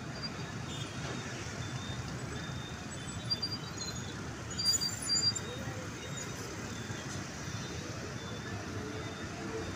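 Busy road-junction traffic: a steady din of motorcycles, cars and buses moving through a roundabout, with a few short high-pitched tones. It swells briefly about three seconds in and again around five seconds.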